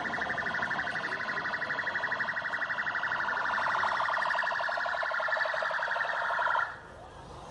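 Police car siren sounding in fast, even pulses, then cutting off abruptly near the end.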